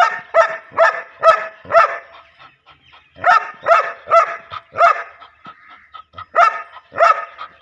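A black shepherd-type dog barking loudly, about two barks a second, in three runs with short pauses between them.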